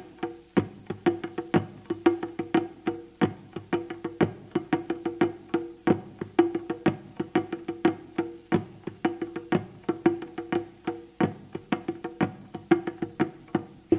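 Live hand percussion playing: quick, uneven strikes, several a second, on a pitched percussion instrument whose hits ring briefly on a low note.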